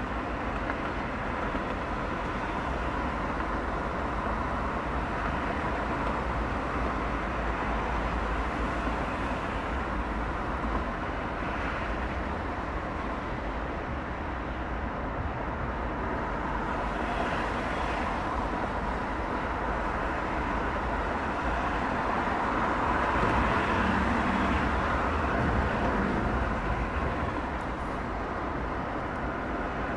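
A car driving on city streets: steady road and traffic noise, which swells louder for a few seconds about two-thirds of the way through.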